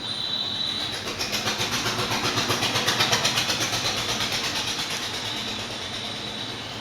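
A pestle in a ginger-crushing mortar, used as a muddler, pounding lemon wedges with sugar in a quick, even rhythm of strokes that grows louder towards the middle and then eases off.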